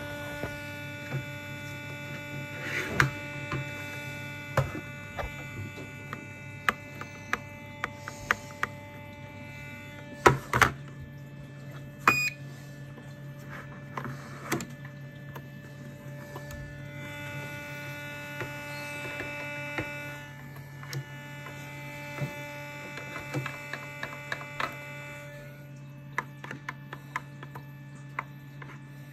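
Scattered clicks and knocks of hands handling a radio-controlled model yacht and its transmitter, the loudest about ten and twelve seconds in, over a steady electrical hum.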